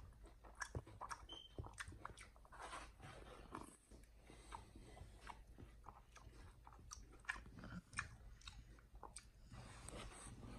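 A chimpanzee biting and chewing on a small whole watermelon, held up to its mouth: faint, irregular wet smacks and clicks of lips and teeth on the rind and flesh.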